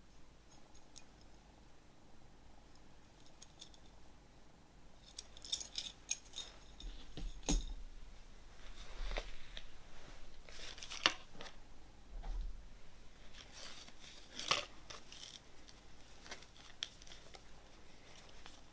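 Quiet close-up unboxing handling sounds: a cluster of light clicks about five seconds in, then a run of crisp rustles and snip-like scrapes as a pair of socks with a card tag is handled.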